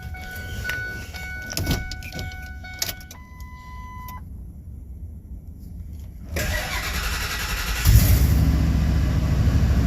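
Electronic warning chime tones sound for the first few seconds. Then the new starter cranks the 2001 Ford F-250's 5.4-litre V8 for about a second and a half, and the engine fires about eight seconds in and runs steadily.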